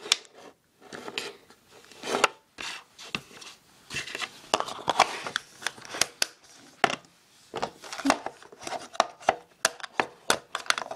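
Small plastic storage boxes of rubber bands being handled: irregular plastic clicks, knocks and rubbing, many of them sharp.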